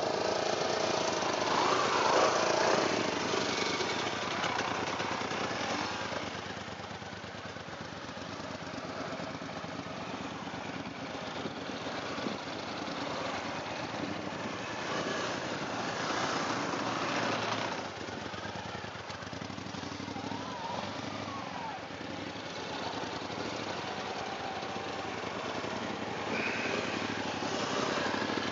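Scooter and motorcycle engines running at low speed as riders circle past close by. The sound is loudest as one passes about two seconds in, and again around sixteen seconds in.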